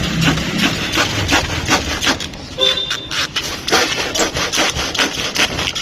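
Hand saw cutting through a board of wood in quick back-and-forth strokes, about three a second, with a short pause a little past the middle. A brief car-horn-like toot sounds during the pause.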